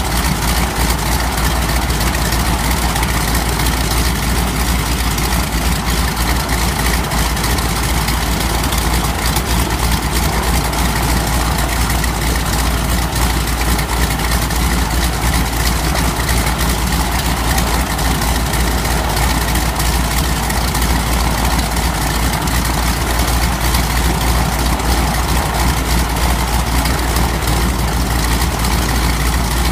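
Pratt & Whitney R-985 nine-cylinder radial aircraft engine and propeller idling steadily on the ground, on its test run after a blown cylinder was replaced.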